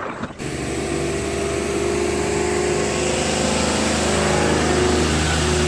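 A motor vehicle's engine running steadily, a low drone with road noise. It starts abruptly about half a second in.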